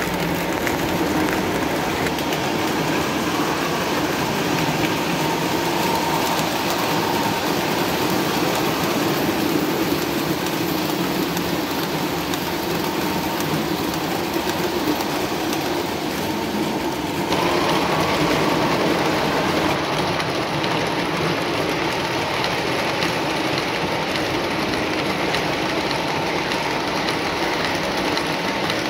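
Lionel O-gauge model trains running on three-rail track: a steady whir of motors and rolling wheels. The sound shifts abruptly about seventeen seconds in.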